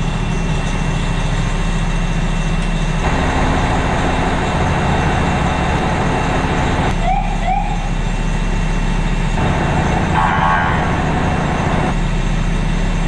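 Fire ladder truck's diesel engine running steadily, with two short rising siren chirps about seven seconds in.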